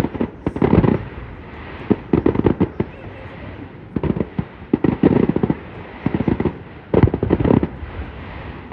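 Fireworks display going off: clusters of sharp, rapid bangs every second or two, with a steady hiss between the clusters.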